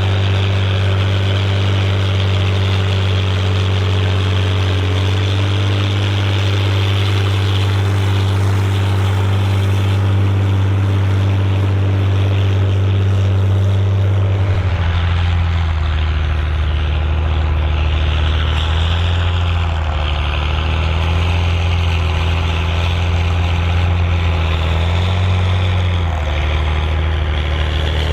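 Volvo BM 810 Turbo tractor's turbo diesel engine running steadily under load while pulling a plough. About halfway through the engine note drops lower and then rises and falls unevenly.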